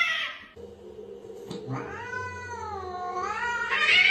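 Cat yowling in protest while being held for a vaccination. One drawn-out call wavers down and back up in pitch, and another loud yowl starts near the end.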